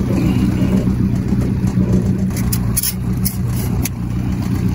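Boat's outboard motor running steadily with a low, even hum, with a few light clicks and rattles of tackle about two and a half to four seconds in.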